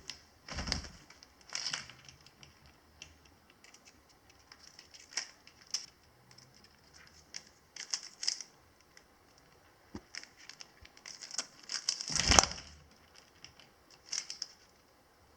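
Parrot biting and crunching a biscuit in its beak: irregular dry crunches and crackles, with a louder crunch about twelve seconds in.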